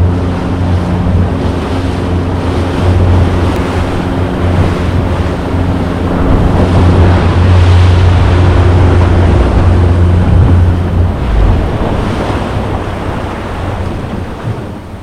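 Boat engine running with a steady low drone under loud wind and rushing water; the engine drone fades away about eleven seconds in.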